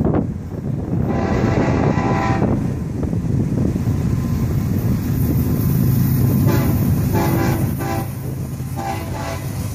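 Two GE Evolution-series diesel locomotives haul a freight train past with a steady low engine rumble. The air horn sounds one long blast about a second in, then several shorter blasts near the end.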